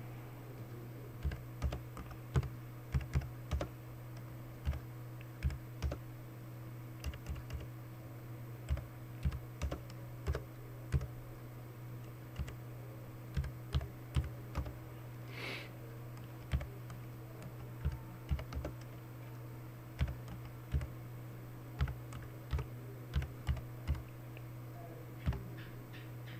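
Typing on a computer keyboard: irregular keystrokes in quick runs with short pauses, over a steady low electrical hum. A brief hiss about fifteen seconds in.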